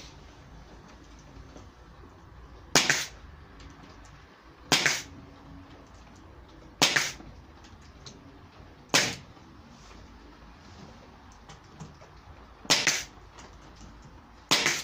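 Bostitch pneumatic nail gun firing six times, about two seconds apart with a longer pause between the fourth and fifth, driving nails through the back panel into an MDF cabinet. Each shot is a sharp crack with a short tail.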